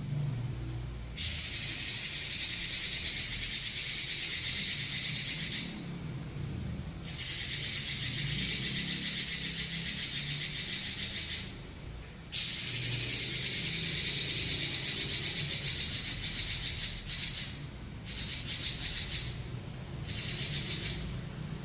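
Red-billed leiothrix (Pekin robin) singing long, fast rolling trills. There are three long bouts of about four to five seconds each with short pauses between them, then two shorter bursts near the end.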